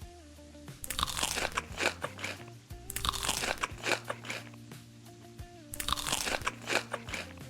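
Close-up crunching and chewing of crisp food in three bursts of rapid bites, over quiet background music.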